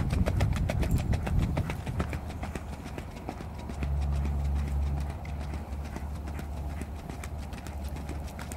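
Hoofbeats of a ridden Icelandic horse on a gravel track at a fast gait, a quick, even clatter of about six or seven strikes a second. A low rumble swells under it near the start and again around the middle.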